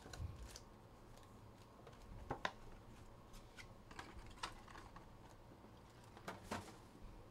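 Faint, scattered clicks and taps, a few short ones spread out with a close pair about two and a half seconds in and another near the end, over quiet room tone.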